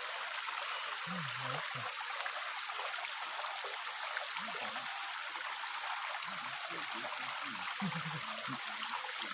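Shallow, rocky stream flowing steadily over and between stones, a constant rush of running water.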